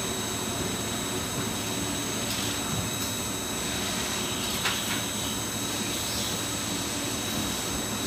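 Shrink-wrap bundler and its heat tunnel running: a steady rushing blower noise with thin, steady high whines over it. A short knock comes about four and a half seconds in.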